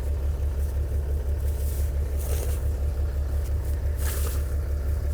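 New Holland TS135A tractor's diesel engine idling steadily with a low, even pulse. Two brief rustling noises come about two and four seconds in.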